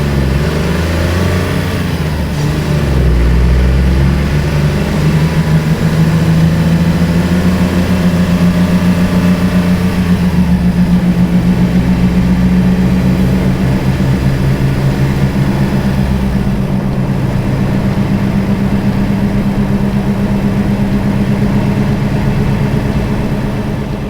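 Seat Ibiza III's 1.2-litre 12-valve three-cylinder petrol engine. Its revs climb over the first few seconds and then hold at a constant rpm, giving a steady, loud engine note with a fast, even pulse.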